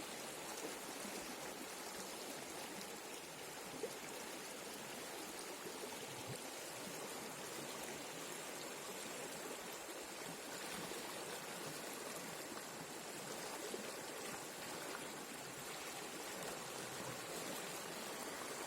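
Steady rush of flowing river water, the Bhadra River running past its banks.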